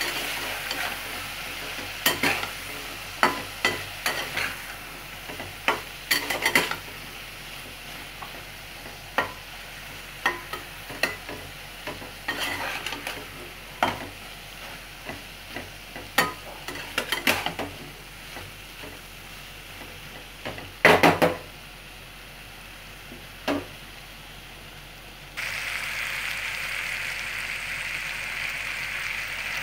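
Spiced moringa drumstick pieces sizzling in a metal frying pan while a spatula stirs them, scraping and knocking against the pan many times at irregular intervals. About 25 seconds in the sizzle becomes louder.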